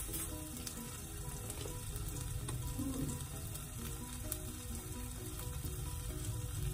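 Oil sizzling steadily in a frying pan with crushed garlic and spices, with small crackles.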